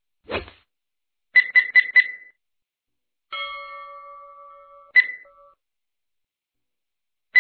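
Electronic quiz sound effects: a brief low sound, then four quick high beeps in a row, a sustained chime tone that fades over about two seconds, and single high beeps after it.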